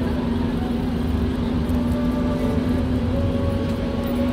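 Road traffic: a motor vehicle's engine running with a steady low rumble and hum.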